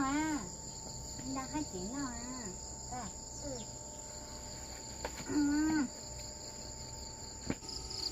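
Steady high-pitched chorus of insects from the surrounding countryside, with a few short stretches of voice and a single sharp knock near the end.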